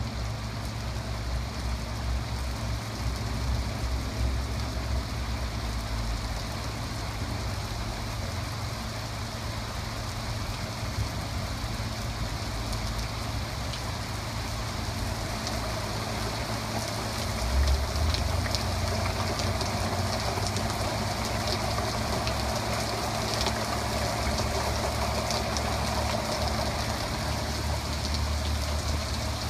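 Thunderstorm rain falling steadily, with a low rumble underneath that grows louder a little past halfway.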